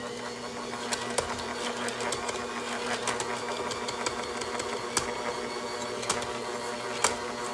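Sunbeam stand mixer's motor running steadily at its slow kneading speed, dough hooks working a stiff bread dough in a stainless steel bowl. Occasional sharp clicks against the steel bowl, the loudest about 1 and 7 seconds in.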